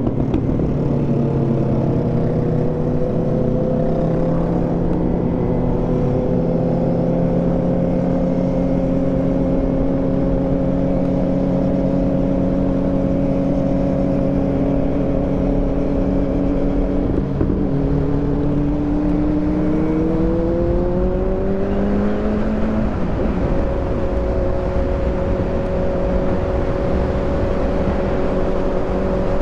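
Kawasaki motorcycle engine running at a steady cruise. About two-thirds through it revs up, rising in pitch over a few seconds, then holds steady at the higher pitch, with a low rush of wind underneath.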